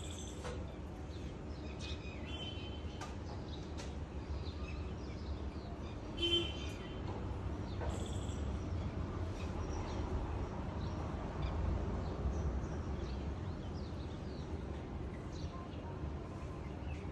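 Scattered short bird chirps over a steady low background rumble, with one louder call about six seconds in.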